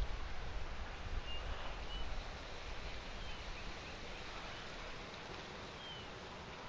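Outdoor ambience: a steady background hiss with a few short, faint, high bird chirps spread through it, and a low rumble in the first two seconds that then dies away.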